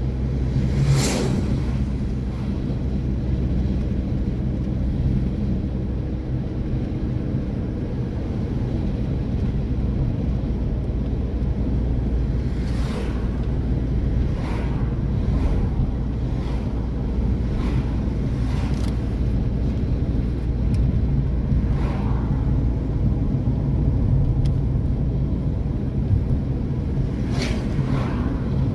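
Steady engine and road rumble inside a moving car's cabin, with oncoming vehicles whooshing past now and then; a lorry goes by about a second in, the loudest pass.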